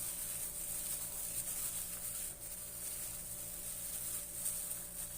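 Faint, soft rubbing of eggplant slices being mixed with flour and seasoning in a bowl, over a steady low hum.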